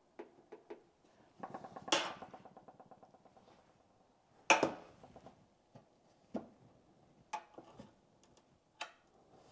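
Clicks and knocks from hands handling an empty stainless-steel electric roaster oven and its temperature dial. A run of fast small ticks starts about one and a half seconds in, with a sharp knock about two seconds in and a louder one about four and a half seconds in, then a few fainter clicks.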